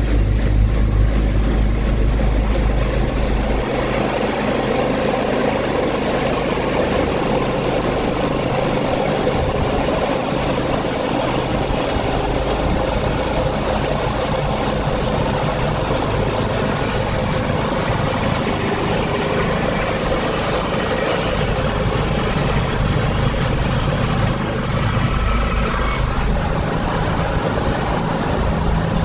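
Sawmill machinery running steadily: a strong low engine hum at first, then a broader, rougher running noise from about four seconds in that holds steady to the end.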